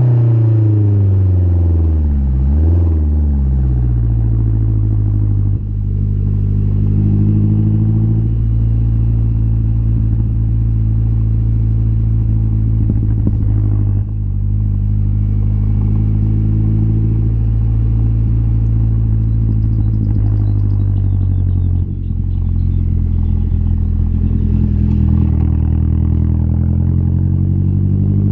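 Exhaust of a 2012 Mazdaspeed 3's turbocharged 2.3-litre four-cylinder through a single-exit axle-back. The pitch falls and rises in the first few seconds, then holds as a steady drone with three brief dips in level, and climbs slightly near the end.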